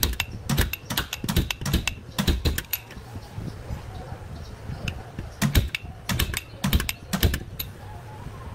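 Sharp, quick taps of a pointed panel-beating tool on the Hyundai Santa Fe's rear steel body panel, knocking out shallow dents. The taps come in short runs of several strikes, with a pause in the middle.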